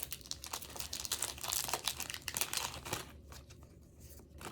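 Paper crinkling and tearing as a card is opened by hand: dense crackling for about three seconds, then a few sparser rustles and a sharp snap near the end.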